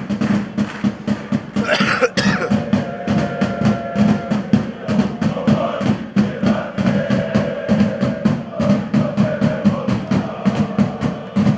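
A drum beaten in a steady rhythm, about four beats a second, with voices chanting over it.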